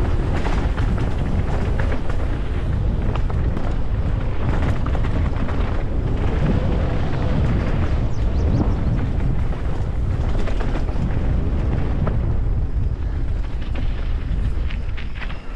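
Wind buffeting the microphone and a downhill mountain bike clattering over rough, dusty trail at speed, with a steady rush full of rapid rattles and knocks that falls away right at the end.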